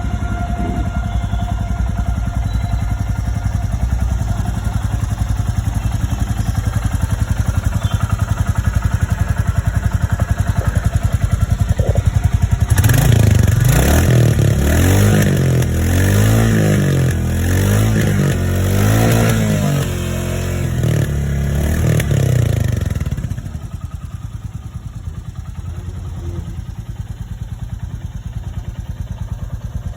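Royal Enfield Classic 350's single-cylinder engine idling with a steady thump through its exhaust. Partway through it is given a run of quick throttle blips, each rising and falling, for about ten seconds, then settles back to idle.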